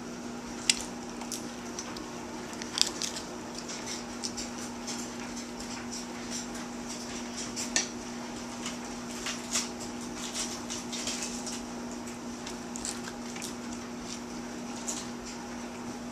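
Small dogs' toenails clicking and tapping on a tile floor in scattered sharp clicks, over a steady low hum.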